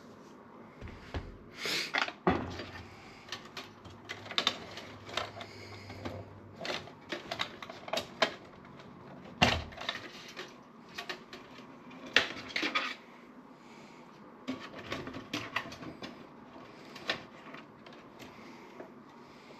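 Irregular clicks, taps and knocks of hands working on a desktop computer case and its parts, with a few louder knocks.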